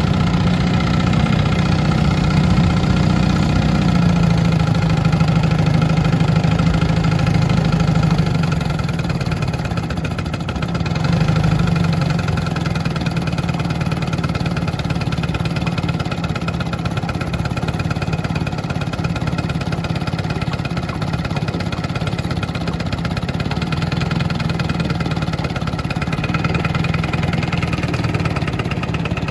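A 1962 Commodore 7.5 hp outboard with a West Bend two-stroke powerhead runs steadily under way, pushing the boat. Its level dips briefly about eight seconds in, then picks back up.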